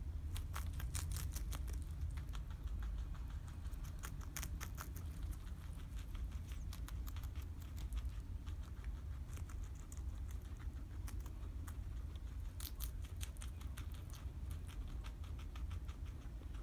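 Two guinea pigs biting and chewing crisp lettuce leaves: quick crunchy clicks, thickest in the first few seconds and again about three-quarters of the way through, over a steady low rumble.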